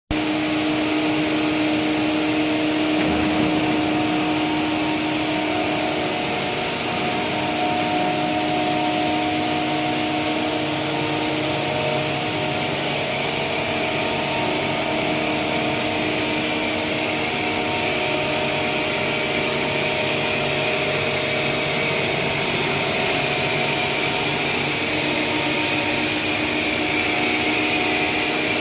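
Pre-stressed plastic tube extrusion machine running steadily: a constant mechanical hum with several held tones and a steady high whine.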